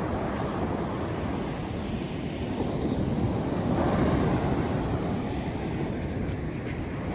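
Pacific Ocean surf washing on the shore, with wind buffeting the microphone; the surf swells louder about four seconds in.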